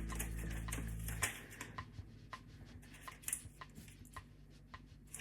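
Background music that ends about a second in, followed by faint, scattered light clicks and taps of hands shaping soft bread dough.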